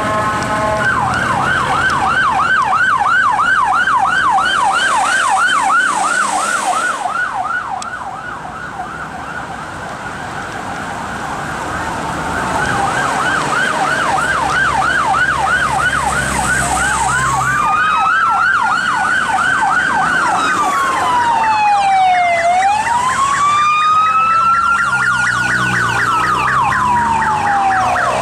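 Police emergency vehicle sirens passing: a fast yelp sweeping up and down about four times a second, easing a little about eight seconds in and building again. From just past the middle a slower wail rising and falling twice joins it, with a second, higher siren overlapping.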